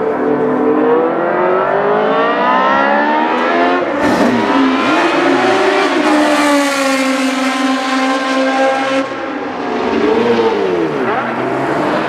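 Classic Formula 1 car's Ford Cosworth DFV V8 at racing speed, revving hard with its pitch climbing through the gears. There is a sudden break about four seconds in, and the pitch rises and falls again near the end.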